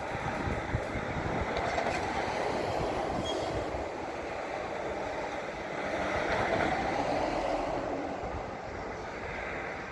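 Drill rig truck's heavy machinery running with a steady mechanical rumble that swells about two seconds in and again around six to seven seconds.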